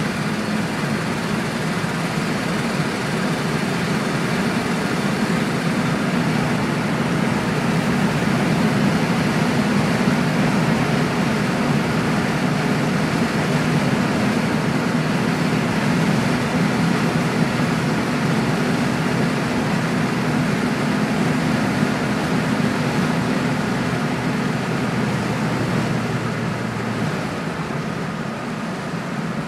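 Inside the cabin of a 1966 Ford Mustang: its 200 cubic-inch inline-six engine running steadily at road speed, with road and wind noise. The engine note eases off a few seconds before the end.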